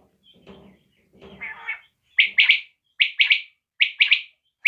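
Desi batair (common quail) calling: soft, low notes at first, then from about two seconds in loud, sharp calls in quick pairs, repeated three times.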